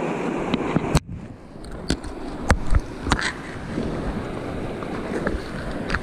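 Shallow river rushing over rocks, with a louder rushing that cuts off suddenly about a second in, then a handful of sharp clicks and knocks close to the microphone over the next couple of seconds.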